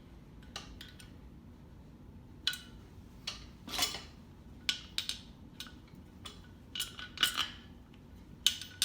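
Irregular metallic clinks and clicks of hand tools and parts knocking against a dirt bike wheel rim while the valve stem and bead lock are tightened.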